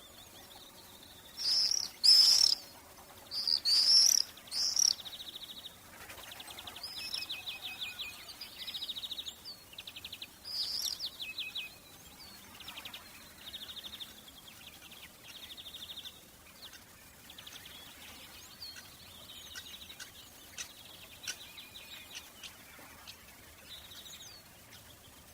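Birds singing and calling: a few loud high chirps in the first five seconds, then rapid trilling songs and short calls that grow fainter and sparser toward the end.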